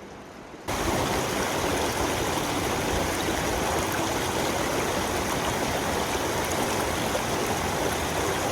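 Loud, steady rushing of glacier-fed mountain water. It cuts in abruptly under a second in, replacing soft music.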